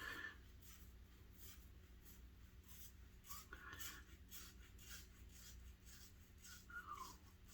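Faint razor strokes scraping through stubble on a lathered face: short, soft scratches repeating about two or three times a second.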